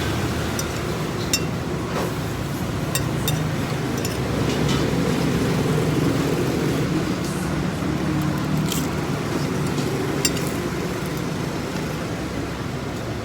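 Steady low rumble of road traffic, with a dozen or so brief, light clicks and clinks scattered through it.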